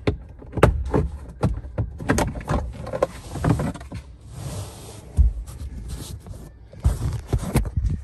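Irregular plastic clicks, knocks and rubbing as a Jeep Wrangler's plastic floor air duct is wiggled and pulled free of its snap tabs under the dash, with a short stretch of scraping about halfway through.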